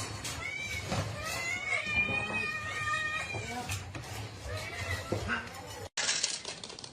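Cat meowing several high, drawn-out calls, with some voices in the background; the sound cuts off abruptly near the end as a different clip begins.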